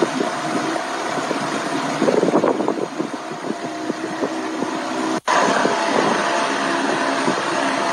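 A boat's outboard motor running steadily at a constant pitch, with a rushing haze of wind and water. The sound drops out for an instant a little past five seconds, then the motor carries on.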